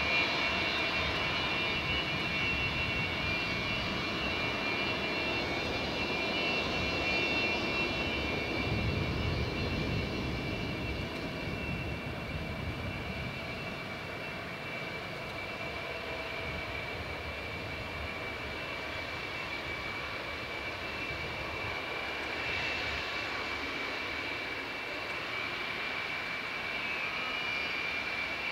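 Antonov An-124's four D-18T turbofan engines running at low power as the aircraft taxis: a steady high whine over a low rumble that swells briefly about nine seconds in.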